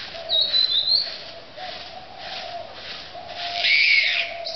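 Stick broom sweeping leaves on a dirt path with even strokes about every two-thirds of a second, while birds call: a short high chirp about half a second in and a louder call near the end.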